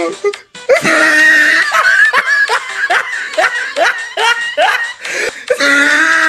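Loud laughter: a run of quick rising "ha" sounds, about three a second, with a held note at the start and again near the end.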